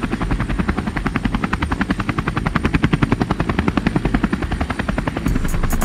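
Helicopter rotor chopping steadily, about eight to nine beats a second. A beat with hi-hat ticks comes in near the end.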